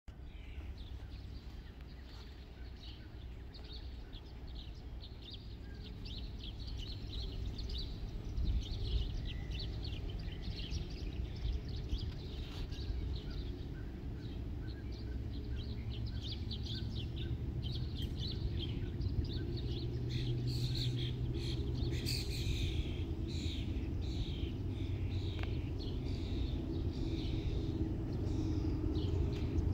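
Songbirds chirping over a low rumble and hum that grows steadily louder through the second half: the diesel locomotives of an approaching loaded coal train still far off.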